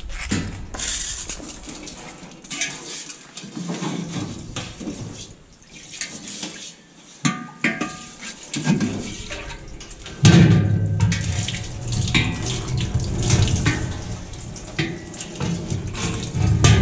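Water from a sink sprayer hose running and splashing into a stainless-steel milking pail and sink, with knocks and clanks of the steel pail and its parts being handled. It gets louder from about ten seconds in.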